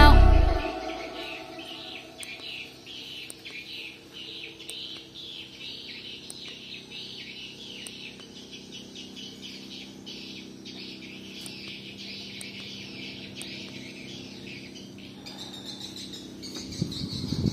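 Small birds chirping, a dense run of quick high chirps, as a song fades out in the first second. Near the end a steadier high call comes in.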